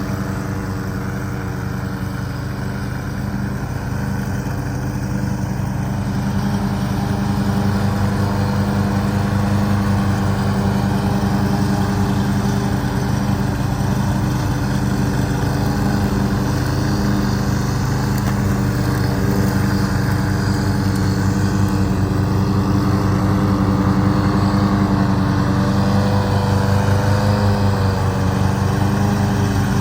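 Riding lawn mower's engine running steadily, growing a little louder about six seconds in and holding there.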